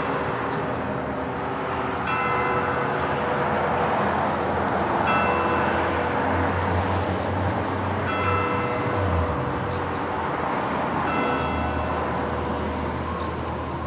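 Sterling M-5 outdoor warning siren sounding a steady alert tone that swells and fades about every three seconds as the siren turns, with a low rumble underneath.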